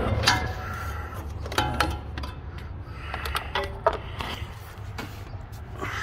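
Metal hand tools clinking and clanking as they are handled: three short clusters of metallic knocks, each ringing briefly, about a second and a half apart. A steady low hum runs underneath.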